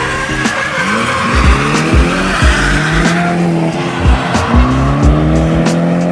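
Mazda RX-8's rotary engine revving up and down with tyres squealing as the car drifts, over repeated low thumps.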